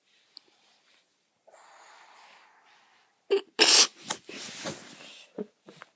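A person's breathing: a soft breath, then about three seconds in a sudden loud nasal burst, followed by several shorter, irregular breathy bursts.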